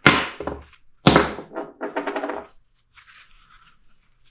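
Two sharp metal knocks about a second apart, each ringing briefly, then some fainter scraping: tools and parts being worked on an ATV rear wheel knuckle and bearing.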